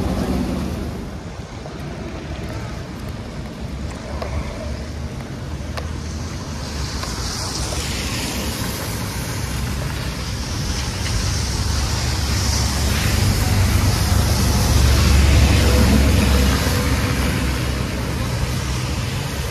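Rain and wet-street hiss, with wind buffeting the microphone. A low rumble of road traffic on the wet street builds a little past the middle and is loudest around three-quarters of the way through, then eases.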